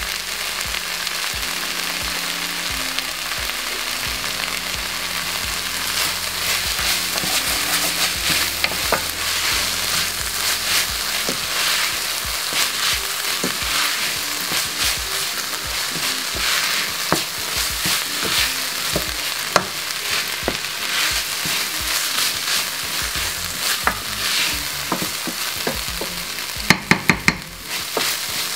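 Minced beef and onions sizzling steadily in a stainless steel frying pan, stirred with a wooden spoon that scrapes and clicks against the pan. A few sharp knocks near the end.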